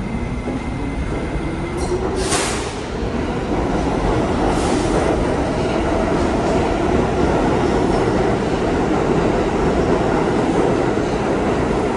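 An R68-series New York City subway train running along the platform as its cars pass close by, with steady wheel and track rumble. A motor whine rises in pitch over the first few seconds and then holds steady. Two short, high squeals or hisses come about two seconds and four and a half seconds in.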